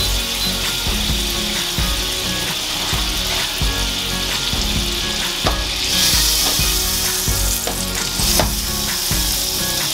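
Butter melting and sizzling in a hot nonstick frying pan, the sizzle growing stronger about six seconds in.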